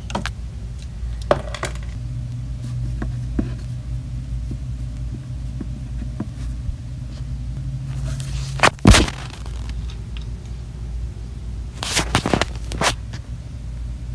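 Plastic toy figurines and the phone recording them being handled over a wooden play set: scattered clicks, scrapes and knocks, the loudest about nine seconds in and a small cluster near the end, over a steady low hum.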